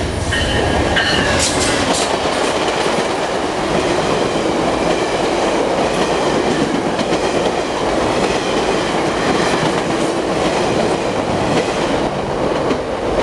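VIA Rail passenger train passing close by at speed: the locomotive and then a long string of stainless-steel coaches go by, wheels clacking over the rail joints with a loud, steady rumble and rattle.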